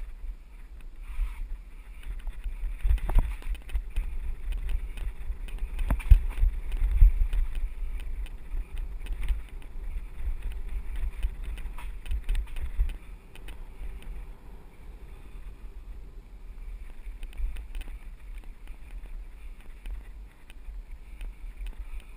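Mountain bike riding down a dirt singletrack, heard from a bike-mounted or rider-mounted action camera: wind buffeting the microphone in a low rumble, with tyres crunching over dirt and stones and the bike rattling over bumps in frequent sharp knocks. It is roughest and loudest from about three seconds in until about thirteen seconds in, then steadier.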